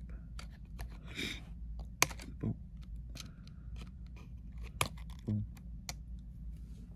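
Small sharp clicks and taps of metal tweezers working the Wi-Fi antenna cable connectors inside an opened MacBook, scattered and irregular, with the two loudest clicks about two seconds and five seconds in.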